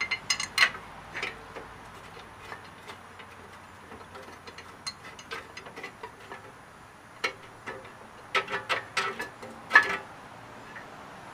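Scattered metal clicks and clinks as a brake caliper bracket bolt is put back in by hand, with a quick run of clicks about eight seconds in, the loudest near the end.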